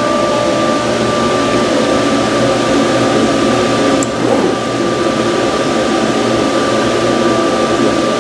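Vacuum hold-down blower of a Gerber cutting table running steadily, with a steady whine over its rush of air, as it holds the perforated vinyl down. There is a brief click about four seconds in.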